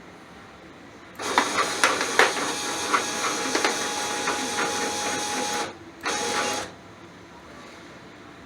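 Linear-actuator axis of a DIY CNC router, driven by a hybrid servo stepper motor, traversing. It makes a steady whirring hiss with a thin tone and scattered clicks, starting just over a second in and stopping suddenly. After a brief pause it makes a second short move of about half a second.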